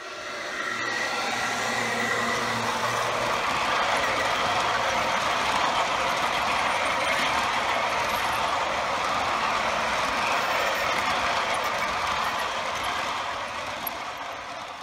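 G-scale model coal train of hopper cars rolling across a model truss bridge, the wheels on the rails making a steady rolling rumble. It builds over the first couple of seconds as the cars come overhead and fades near the end.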